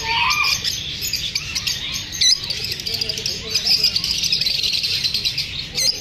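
A flock of caged lovebirds chirping together: dense, overlapping high chirps and short squeaks without a break, which the keeper says is their reaction to feeling unsafe after shooting.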